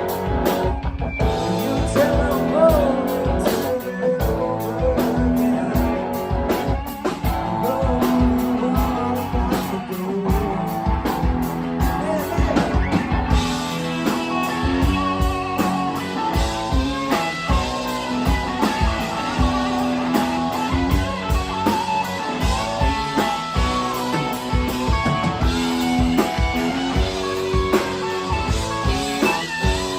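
Live rock band playing, electric guitar to the fore with bending notes over a steady drum beat.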